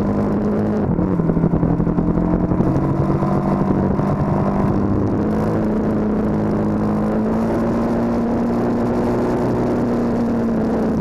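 KTM 1290 Super Duke R's V-twin engine pulling under load, heard from a camera on the bike; its note climbs slowly as the bike accelerates and eases slightly near the end.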